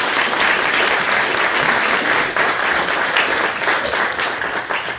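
Audience applauding: dense, steady clapping from a crowd that thins out near the end.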